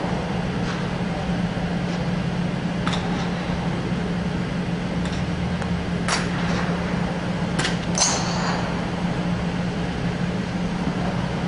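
A golf club striking a golf ball on artificial turf with a sharp click about six seconds in, followed by two more clicks near eight seconds, over a steady low mechanical hum. A fainter click comes about three seconds in.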